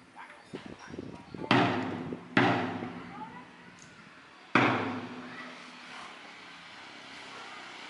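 A few soft knocks, then three loud, heavy thuds at uneven spacing, each dying away over about a second.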